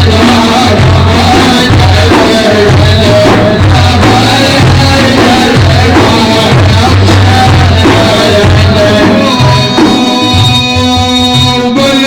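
Instrumental break in an Arabic Sufi praise song (madih): a driving low drum beat under a melodic line, with a steady held note coming in near the end.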